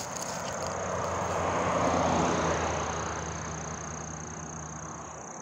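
A vehicle passing on the road: tyre and engine noise swells to a peak about two seconds in, then fades away.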